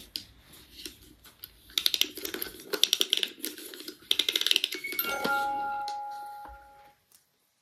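Wind-up music box in the base of a small Christmas tree being wound: rapid ratchet clicking in two spells, then a few ringing chime-like notes starting about five seconds in that fade out near the end.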